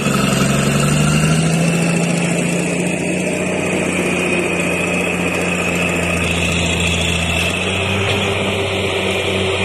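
Heavy diesel engines of a crawler bulldozer and an excavator running steadily at idle: a low, even drone with a thin steady whine above it.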